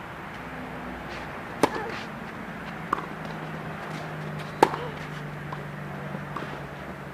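Tennis ball struck by racket strings in a rally: two loud, sharp hits about three seconds apart, each answered by a fainter hit from the far end of the court. A low steady hum runs underneath.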